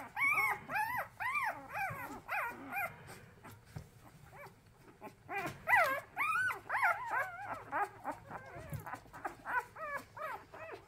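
Newborn puppies whining and crying, many short squeals that rise and fall in pitch, in quick succession, with a brief lull about four seconds in before a fresh burst. Hungry fussing of orphaned, bottle-fed pups whose eyes are not yet open.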